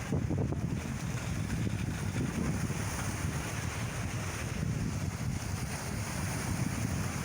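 Sea waves washing in a steady, unbroken rush, with a low rumble from wind buffeting the microphone.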